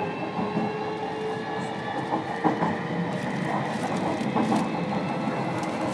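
Interior running sound of a JR Kyushu 305 series electric train's motor car under way: a steady rail rumble with a traction-motor whine that rises slowly in pitch, and a few wheel clicks.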